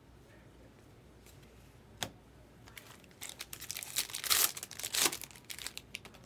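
A sharp click about two seconds in, then a foil trading-card pack being torn open and its wrapper crinkled for a couple of seconds.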